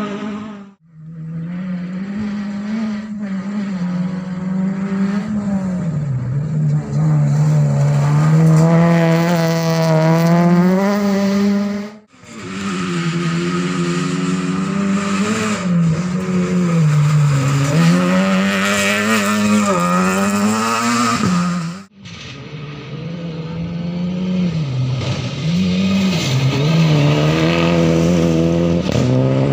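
Rally cars at full attack on a gravel stage, their engines revving hard, rising and dropping through gear changes and lifts, with loose gravel spraying under the tyres. There are three separate passes, each cut off abruptly.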